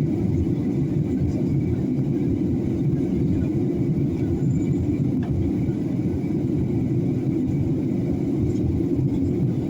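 Airliner cabin noise in flight: a steady, deep rumble of engines and airflow heard from inside the passenger cabin, with a faint steady high tone above it.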